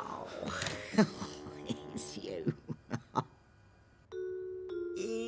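Cartoon soundtrack: a cat's falling yowl trails off, then a short mallet-percussion music cue (xylophone-like notes) plays with a few knocks. After a brief near-silent gap, a steady held tone begins about four seconds in.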